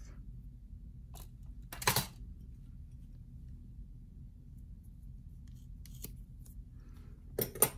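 Steel scissors cutting a leather baseball-glove lace: a few faint clicks and two short, sharp snips, about two seconds in and near the end.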